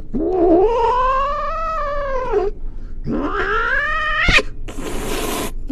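Domestic cat giving two long, drawn-out yowling meows in reply to a question: the first about two and a half seconds, rising then falling in pitch, the second shorter and rising. A sharp click and about a second of hiss-like noise follow near the end.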